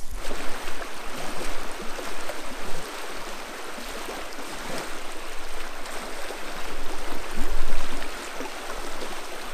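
River water rushing over riffles: a steady, even rush of flowing water.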